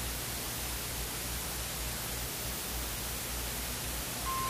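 Steady hiss with a low hum underneath, the noise floor of an old film soundtrack, with no speech. A short, steady beep starts just before the end.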